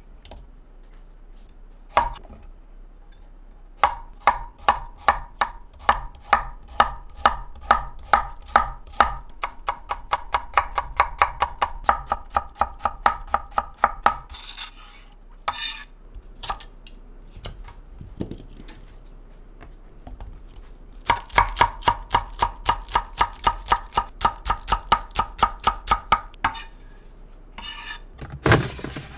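Knife chopping on a cutting board in steady runs of sharp strokes, about two to four a second. There are two long spells of chopping with a pause between them, and a few brief scraping sounds in the pause.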